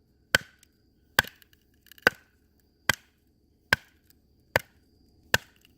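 A wooden baton striking the spine of a fixed-blade knife to drive it through a very hard, knotty piece of firewood. Seven sharp, evenly paced knocks, a little under a second apart.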